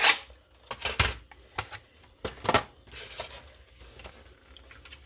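Candy packaging being handled and unwrapped: five or six sharp crinkling clicks in the first three seconds, then softer rustling.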